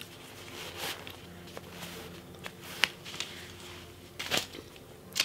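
Soft rustling of a cloth dust bag as a leather handbag is slid out of it, with a sharp click about three seconds in and a brief louder rustle near the end.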